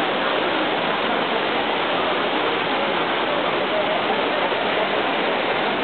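Water of the Trevi Fountain cascading over its stone basins and rocks: a steady rush.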